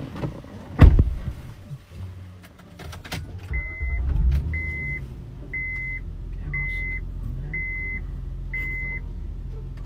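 Inside a car: a heavy thud about a second in and a few clicks, then the engine starts and runs at a steady low idle while the dashboard warning chime beeps six times, about once a second.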